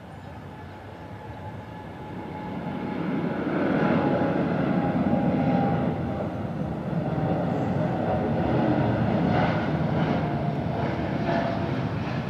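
Jet airliner engines at takeoff power. The noise swells over the first few seconds as the aircraft comes past, then holds loud and rough.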